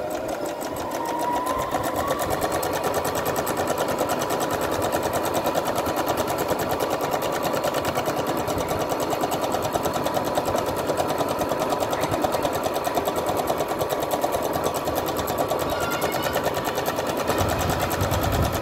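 Brother LX27NT electric home sewing machine running fast, stitching along a folded fabric edge. Its motor picks up speed over the first two seconds, then runs steadily with an even rapid stitching rhythm until it stops at the end.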